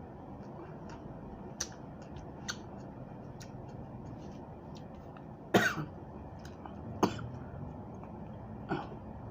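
A person chewing raw vegetables close to the microphone, with small wet clicks and three louder sharp sounds, the loudest about halfway through and the others near the end.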